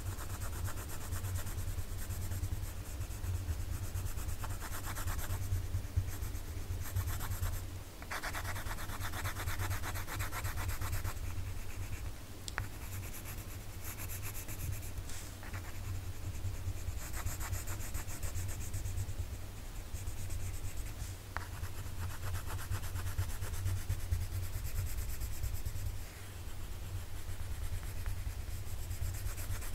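Red colored pencil shading on sketchbook paper: fast back-and-forth scratchy strokes in long stretches, broken by a couple of brief pauses, over a steady low hum.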